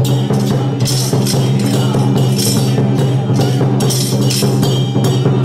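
Traditional Taiwanese temple-procession percussion for a Song Jiang Zhen troupe: drum, gongs and cymbals beating steadily, with repeated cymbal crashes over a steady low hum.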